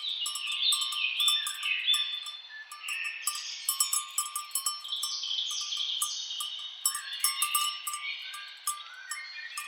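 Cowbells on grazing cattle clanking in quick, irregular strikes with a ringing tone, over many birds calling in overlapping phrases of stepped, falling notes.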